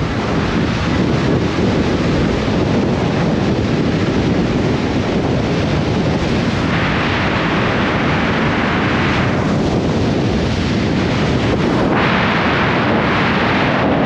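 Wind rushing over the microphone of a camera mounted outside a car at highway speed, with steady road noise underneath. The hiss grows brighter twice, about seven and twelve seconds in.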